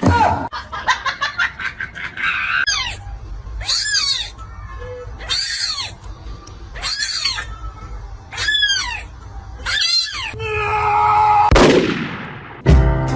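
A cat meowing loudly and repeatedly: five similar drawn-out calls about a second and a half apart, each rising and then falling in pitch. A falling whistle-like sweep follows near the end.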